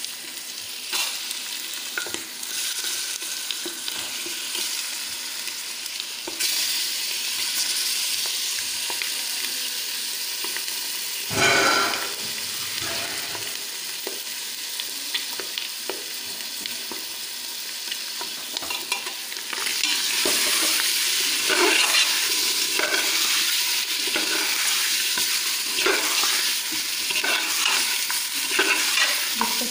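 Chicken pieces sizzling in oil and ground masala in a pressure cooker pot, stirred with a steel spoon that clicks and scrapes against the pot. The sizzle grows louder about six seconds in and again near twenty seconds, with one louder knock about eleven seconds in.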